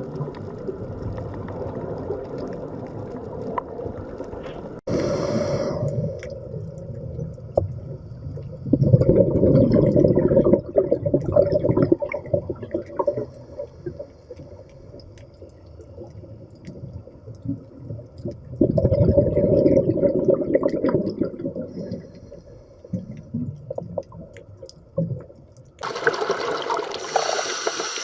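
Underwater ambience: a steady low watery rumble with two loud stretches of bubbling gurgles, one about nine seconds in and one about nineteen seconds in, each lasting around three seconds.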